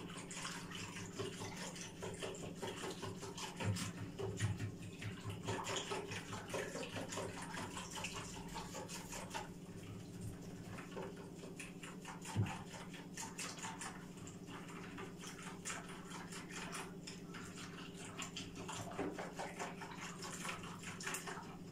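A small whisk stirring yogurt with a little warm milk in a bowl to smooth out the lumps: quick light ticks and scrapes of the whisk against the bowl, with soft wet sloshing, and one sharper knock about halfway through.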